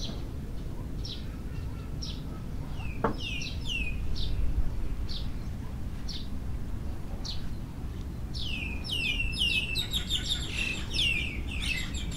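Birds calling. One bird repeats a short high note about once a second, while others give quick falling calls in bursts, about three seconds in and again from about eight seconds on. Beneath them is a steady low rumble.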